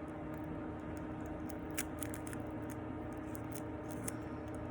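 Faint clicks and rustles of hands twisting and handling the thin wires of an LED light strip, over a steady low electrical hum.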